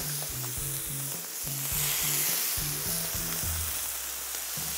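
Chicken frying on a very hot griddle: a steady sizzling hiss that swells briefly about two seconds in.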